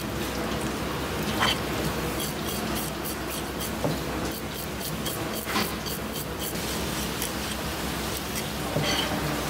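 Kitchen knife scraping along a flathead fish's skin, with a tap running steadily onto it. A run of quick rasping strokes comes between about two and six and a half seconds in.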